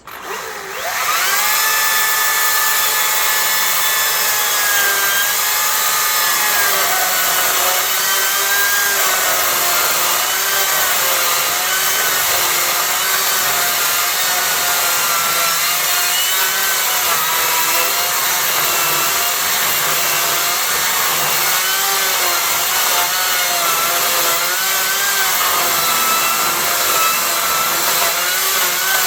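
Makita 18 V battery chainsaw with a 1/4-pitch ripping chain rip-cutting along the grain of a hardwood acacia log. The motor spins up with a rising whine just after the start, then runs on steadily, its pitch dipping and wavering as the chain loads in the cut.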